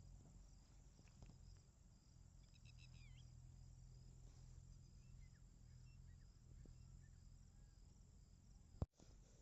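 Near silence: a faint steady low hum, with a brief faint chirping about two and a half seconds in and a sharp click near the end.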